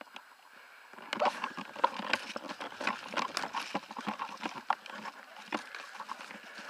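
Footsteps crunching over twigs, dry needles and undergrowth on a forest floor, with brush rustling against clothing and gear, starting about a second in.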